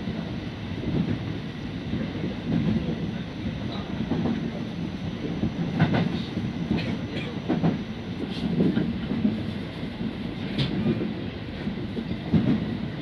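Kintetsu electric commuter train running, heard from inside the front car: a steady rumble of wheels on rail, with a few sharp clicks and knocks from the track.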